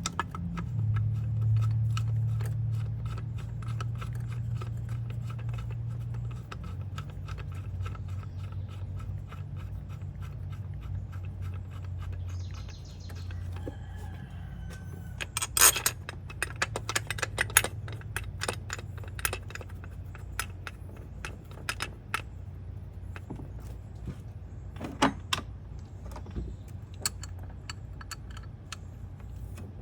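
Metal clinking and clicking of hand tools and bolts as bolts are put back in and tightened, with a loud cluster of clinks about halfway through, over a steady low hum.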